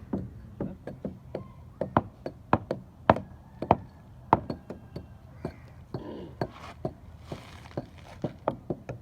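Hand tools knocking on concrete during expansion-joint repair work. The sharp knocks come irregularly, about two or three a second, with a brief scraping hiss about six to seven seconds in.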